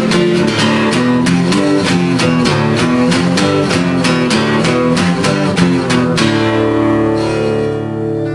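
Background music with rapidly picked guitar notes in an even rhythm, which about six seconds in give way to a held chord that slowly fades.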